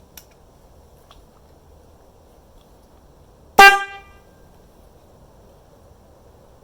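A 12-volt car horn, switched by an electric skateboard's remote through a MOSFET, gives one short, loud honk about three and a half seconds in.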